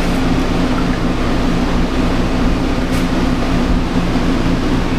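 Steady mechanical hum with a constant hiss from a running machine, with one light tick about three seconds in.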